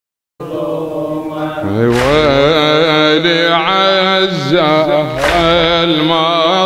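A male radood's solo voice chanting the opening of a Shia elegy into microphones, in long held, wavering melismatic notes with strong vibrato. The voice cuts in abruptly about half a second in.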